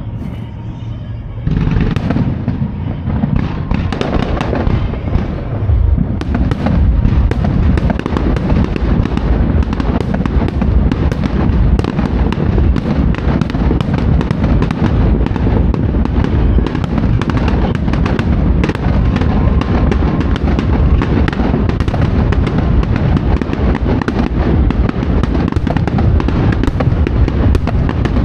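Fireworks display: aerial shells bursting and crackling in a dense barrage. It thickens about a second and a half in, and again around six seconds in, into a continuous rapid string of bangs.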